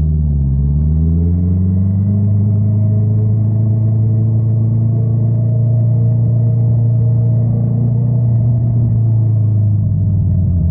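Honda CBR650R's inline-four engine with an Akrapovic exhaust running steadily. The pitch dips and climbs again in the first second or so, holds even for most of the stretch, and eases down slightly near the end.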